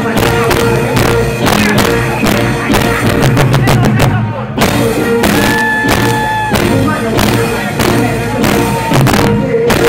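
Live band music played loud through a stage sound system, with a steady drum beat. A woman's voice comes through the microphone, and a single note is held for about a second halfway through.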